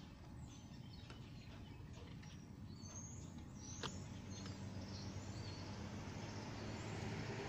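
Faint outdoor background with birds giving short high chirps, a single click a little before the middle, and a low engine hum that grows steadily louder through the second half as a distant vehicle approaches.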